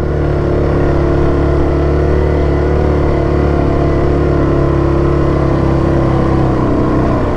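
Yamaha Grizzly 700 ATV's single-cylinder four-stroke engine running loud and steady under way, its pitch holding even.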